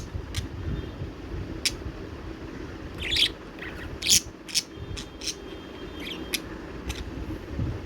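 Pet budgerigar chirping: a string of about a dozen short, sharp chirps at uneven intervals, over a low steady background hum.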